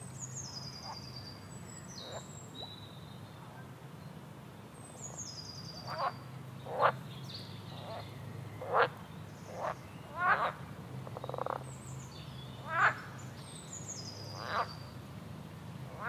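Frogs calling in a series of short, loud croaks through the second half, over a bird's high song that runs down in a quick series of notes three times, with a steady low hum underneath.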